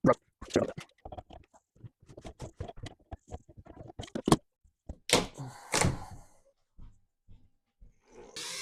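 Knocks, clunks and scrapes from dismantling a bathroom vanity: a run of small knocks, a sharp loud knock a little after four seconds, then two louder scraping clatters.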